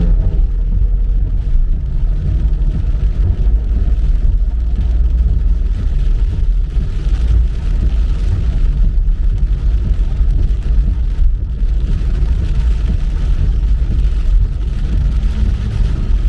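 A car driving: a steady, loud low rumble of engine and road noise.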